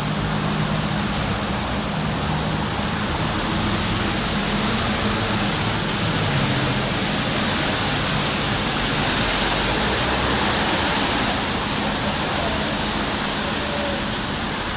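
Steady hiss of rain falling, with a low hum underneath for the first half.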